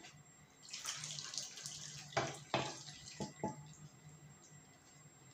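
Tomato sauce pouring and splashing out of a frying pan into a stainless steel tray of stuffed peppers. About two seconds in come four sharp knocks of the pan against the steel tray as the last of the sauce is shaken out.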